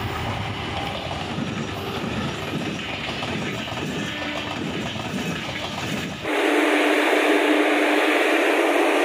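Passenger train hauled by an electric locomotive passing close by, with a rumble and the clatter of wheels on the rails. About six seconds in it cuts suddenly to a louder, steady hiss with no deep rumble.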